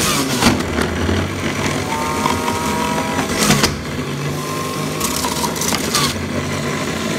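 Electric HomeMaster juicer-blender motor running steadily while beetroot and carrot are pressed down its feed tube with the pusher and shredded. Louder crunching bursts come about half a second in, at about three and a half seconds, and again at around five to six seconds.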